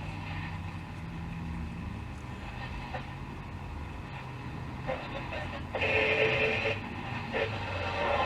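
Pilot T510 radio playing on the AM broadcast band: a steady hum and static, with snatches of station audio and a louder pitched sound from about six to seven seconds in, then station sound coming up again near the end.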